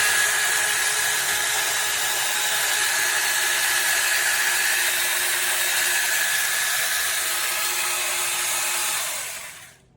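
STUNLUX cordless electric pole saw's motor and chain running steadily at full speed, with a steady whine, then winding down near the end as it is switched off.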